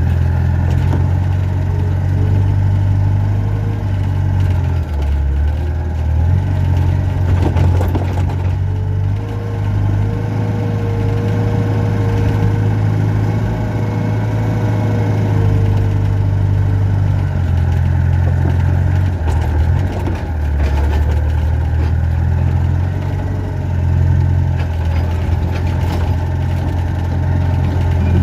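Excavator diesel engine running, its low hum shifting in pitch and load every few seconds as it works a grapple to pick up logs. A thin whine rises over it for several seconds midway, and there are a few clanks.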